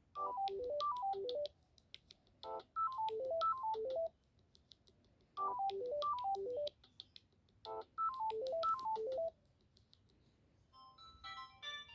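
Samsung Galaxy A02 phone ringtone: a short phrase of quick falling note runs, played four times with a pause of about a second between each. Near the end a different, higher ringtone with a busier string of notes begins.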